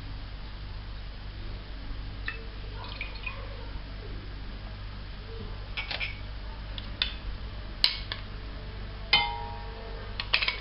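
Dishes and utensils handled during food preparation: scattered light clinks and taps, the two loudest about eight and nine seconds in, the second ringing briefly as struck glass or crockery does, over a steady low hum.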